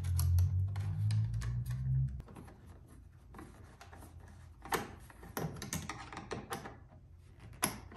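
Scattered light clicks and ticks of a metal hose clamp and aluminium duct elbow being tightened by hand onto a planer's dust port. A low hum stops about two seconds in.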